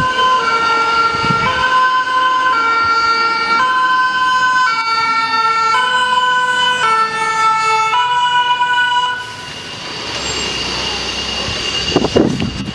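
French fire engine's two-tone 'pin-pon' siren, switching between its two notes about once a second. Its pitch drops slightly as the truck passes. The siren cuts off about nine seconds in, leaving softer road noise, and a few thumps come near the end.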